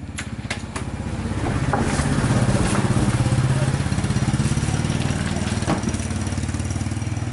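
A small engine running with a rapid, even pulse, growing louder from about a second and a half in and easing off after four seconds. A few light clicks sound over it.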